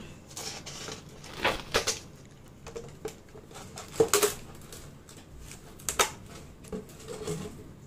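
Empty plastic soft-drink bottle being handled and cut with a knife: scattered crackles, taps and clicks of the blade and thin plastic, the loudest about four seconds in.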